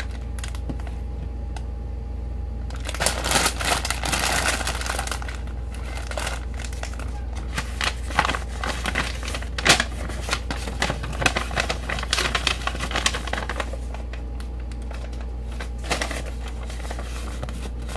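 Crinkling and rustling of a diamond painting kit's packaging being handled on a table, with many small clicks and taps. It starts about three seconds in and thins out after about thirteen seconds, over a steady low hum.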